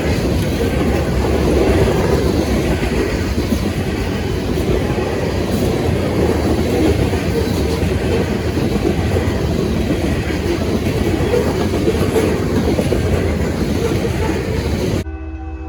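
A freight train rolling past close by: a steady heavy rumble with the clickety-clack of wheels over the rail joints. Near the end it cuts off abruptly and a quieter, steady pitched tone takes over.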